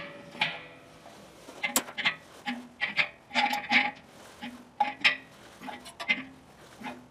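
Wrench tightening a pre-sealed check valve into a threaded pipe riser on an air compressor tank: a run of metal clicks and short squeaky notes, one every half second or so, as the fitting is turned in stroke by stroke.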